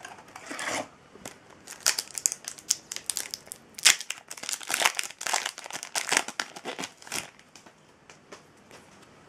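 Foil Yu-Gi-Oh! booster pack wrapper crinkling and tearing as it is handled and ripped open: a run of irregular crackling rustles that dies away about seven seconds in.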